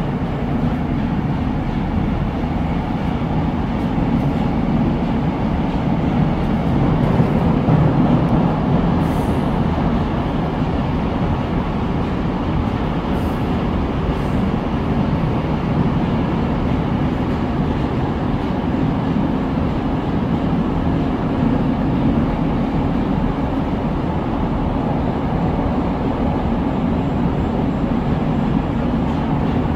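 Moscow Metro Moskva-2020 train running through a tunnel between stations, heard from inside the car: a steady, loud rumble that swells slightly about seven seconds in.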